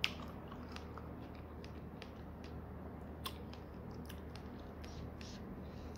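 Close mouth sounds of someone chewing fresh strawberries: soft, wet smacking clicks at irregular intervals, the sharpest right at the start and another about three seconds in.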